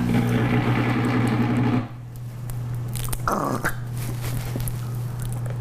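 A kitchen appliance motor running with a rough, growling drone that cuts off suddenly about two seconds in, leaving a steady low hum. About a second later comes a short falling squelch of sauce being squeezed from a bottle.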